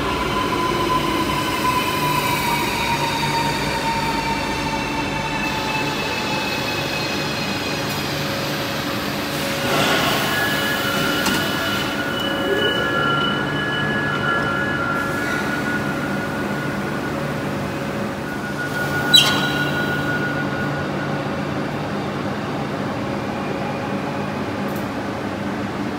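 Renfe Cercanías Civia (series 465) electric train braking to a stop at an underground platform. Its traction motor whine falls in pitch over the first several seconds, then it stands with a steady electrical hum. There is a short burst of noise about ten seconds in and one sharp click a little past halfway.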